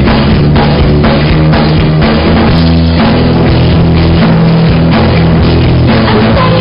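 Loud rock music with a driving drum kit beat, heavy bass and guitars.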